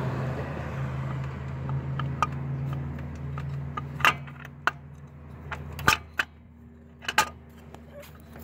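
Scattered sharp clicks and knocks of a replacement distributor and its plastic cap being handled and fitted into the engine bay, over a steady low hum that fades out about six seconds in.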